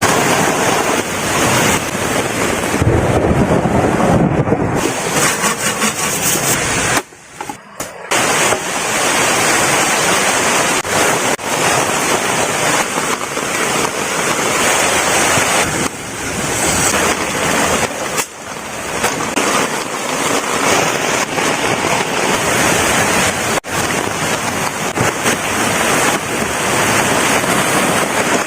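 Heavy rain pouring down, with wind noise on the microphone. The sound drops out briefly about seven seconds in.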